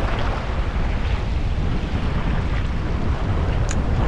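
Wind buffeting the microphone over a steady wash of surf, a continuous rumbling hiss with no break.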